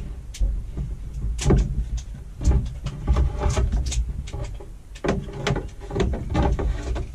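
Irregular plastic clicks, knocks and scrapes as an old caravan tap and shower mixer unit with its plastic hoses is jiggled out through the back of a plastic basin.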